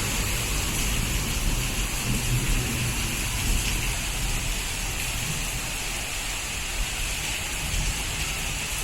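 Rain falling steadily, a continuous even hiss, with a low rumble underneath.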